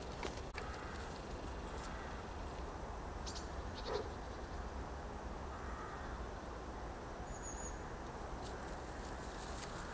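Faint open-field ambience with a steady low rumble and a few light ticks and rustles, and one short animal call about four seconds in.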